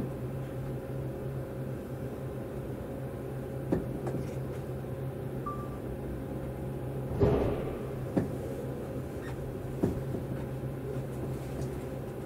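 Tobu 200 series limited-express electric train heard from inside its cabin as it rolls slowly through a depot shed: a steady low hum with a few short knocks, the loudest about seven seconds in.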